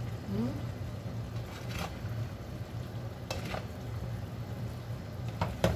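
A plastic slotted spatula stirring chicken and vegetables in sweet and sour sauce in a frying pan, with a few scrapes and knocks against the pan, the loudest near the end. A low steady hum runs underneath.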